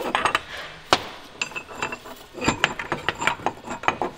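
Steel splined shift-collar and gear parts being slid and worked out of the front axle tube housing of a 2015+ Chevrolet Colorado IFS axle, making a series of metallic clinks and short rings, with a sharper knock about a second in.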